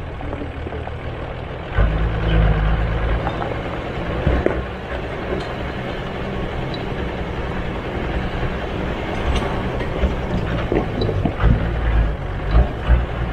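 Off-road 4x4 vehicle's engine running, louder from about two seconds in, with a steady noisy rush and scattered short knocks over it.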